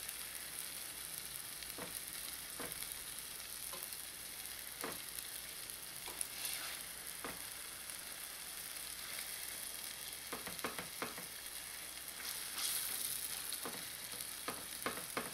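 Beef frying in an onion and red chili sauté in a stainless steel pot, a steady sizzle as the meat is seared to seal it before water goes in. Metal tongs click against the meat and pot now and then as the pieces are turned.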